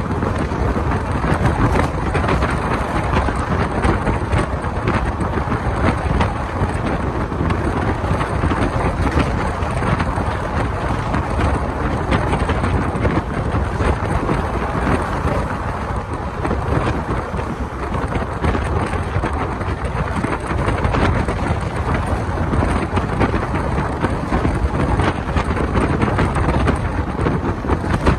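Wind rushing and buffeting over a microphone held out of a moving passenger train, over the steady running noise of the coaches on the track.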